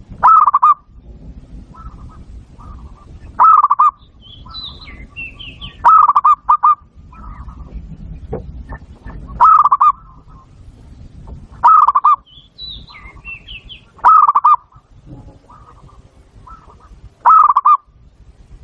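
Zebra dove (perkutut) cooing: a loud phrase of quick, pulsed notes, repeated seven times about every two to three seconds, with softer single notes in between. Twice a higher twittering call from another bird cuts in.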